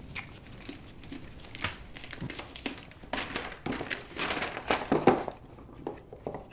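Gift-wrapping paper crinkling and rustling in irregular spurts as a present is unwrapped, busiest about two to five seconds in.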